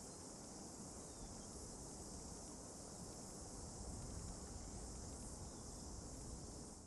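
Steady, faint high-pitched chorus of insects, with a low rumble beneath; it cuts off abruptly at the very end.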